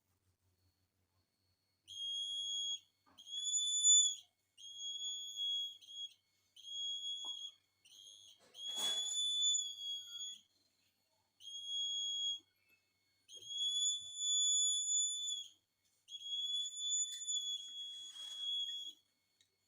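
Buzzer of a laser security door alarm sounding a single high steady tone in about nine bursts of uneven length, starting about two seconds in, the alarm going off each time the beam is broken. A short click comes about halfway through.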